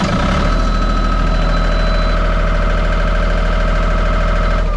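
Kohler marine generator set running just after start-up: a steady engine drone with a steady high-pitched whine over it.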